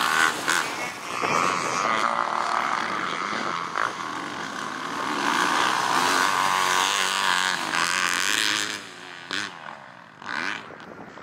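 Motocross bike engines, a Yamaha YZ250F four-stroke among them, revving up and down as the bikes ride the track, the pitch rising and falling. The sound drops away sharply about nine seconds in, leaving fainter, shorter engine passes.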